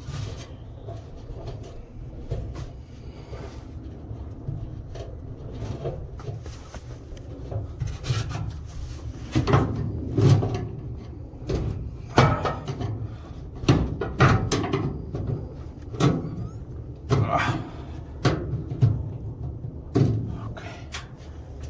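Hand work on dryer parts during a repair: irregular rubbing and scraping strokes with scattered knocks, busier and louder in the second half.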